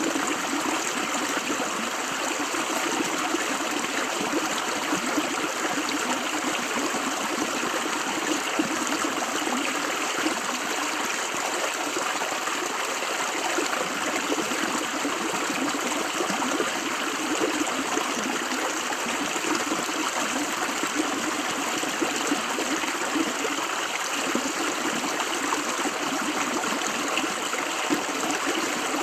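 River water running steadily over stones, a continuous rushing and babbling.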